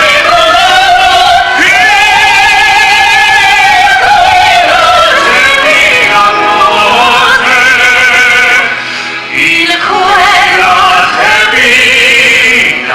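Singing in an operatic style, with long held notes and a strong vibrato, over musical accompaniment, from a live stage performance of a musical number. The singing breaks off briefly about two-thirds of the way through, then resumes.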